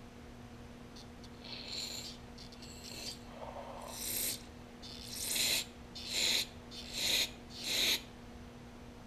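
Aerosol carburetor cleaner sprayed in about seven short hissing blasts through a small-engine carburetor's body and jet, the later blasts the loudest, to flush debris out of its ports and passages.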